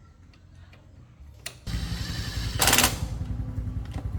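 A motorcycle engine starts suddenly about a second and a half in and keeps running in a rapid low pulse. About a second after it starts there is a short, louder burst.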